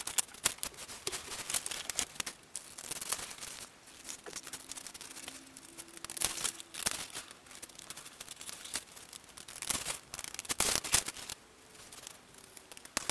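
Scissors snipping through a sheet of paper in irregular cuts, with the paper rustling and crinkling as it is turned and handled.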